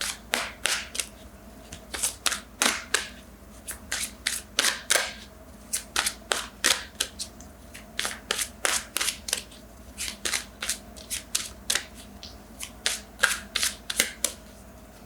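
Tarot cards being shuffled by hand: an irregular run of short, sharp papery snaps, about three a second.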